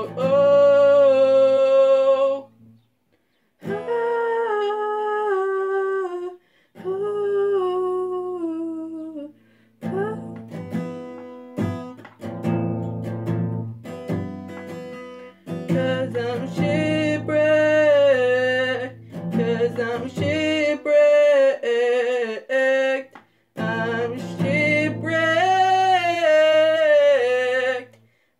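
A girl singing a slow melodic line to her own strummed classical guitar, the voice gliding and bending between notes; the music breaks off briefly twice, about three seconds in and again near the end.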